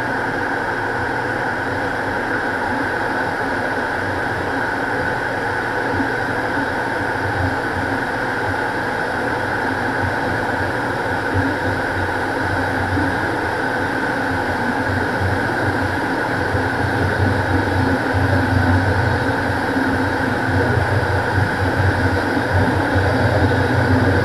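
Cockpit noise of a Beechcraft King Air in cruise descent: a steady drone from its twin PT6A turboprop engines and propellers, with a steady high tone over it. It grows a little louder and heavier over the last several seconds.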